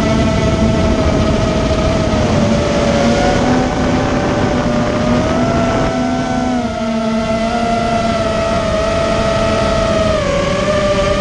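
ImmersionRC Vortex 250 Pro FPV racing quadcopter in flight, its brushless motors and propellers whining steadily. The pitch wavers up and down with the throttle and dips briefly near the end.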